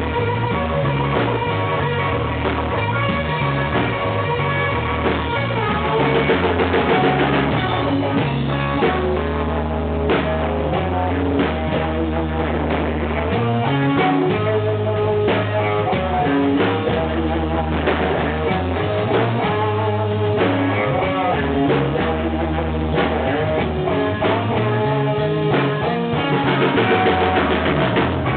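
Blues band playing live: drum kit, bass guitar and guitar together in a steady groove.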